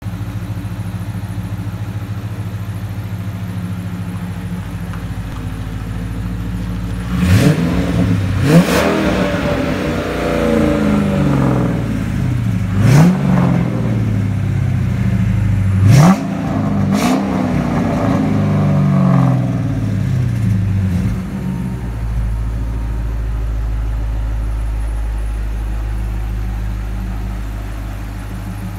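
Gen III 5.7-litre HEMI V8 in a 1968 Dodge Charger idling steadily. About seven seconds in it is revved in about five quick throttle blips, each rising sharply and falling back slowly, and it settles back to idle at about twenty-two seconds.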